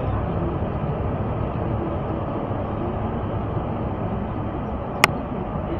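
Steady engine and road noise inside a car's cabin, with a single sharp click about five seconds in.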